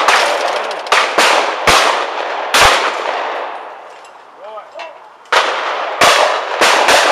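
Shotgun reports from clay pigeon shooting, each a sharp bang with a ringing tail. There are about eight shots in two clusters: four in the first three seconds, then four more after a pause of about two and a half seconds.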